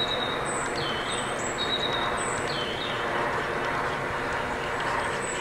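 Steady rushing outdoor background noise, with a small bird giving short high chirps several times in the first few seconds.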